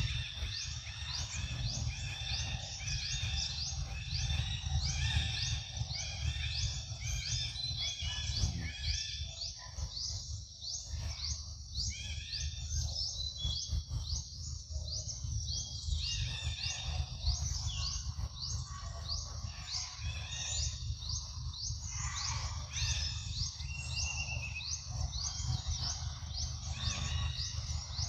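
Forest ambience: birds chirping steadily in a dense chorus of short, rapidly repeated high chirps, over a constant low rumble.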